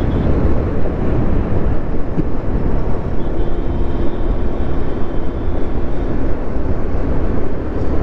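Wind rumbling and buffeting on the microphone of a moving Honda Grazia 125 cc scooter, with the scooter's engine running steadily under it at cruising speed.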